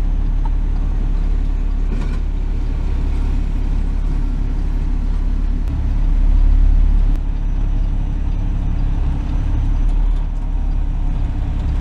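Truck's diesel engine droning inside the cab as it rolls slowly, swelling louder about six seconds in and dropping back abruptly a second later.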